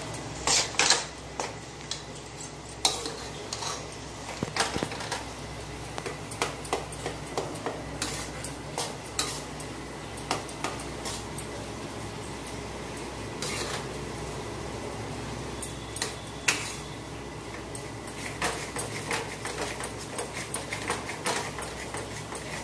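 Metal spatula knocking and scraping against a metal kadai while gram flour is stirred as it roasts in ghee. The irregular clinks come thick in the first few seconds and again near the end, sparser in between.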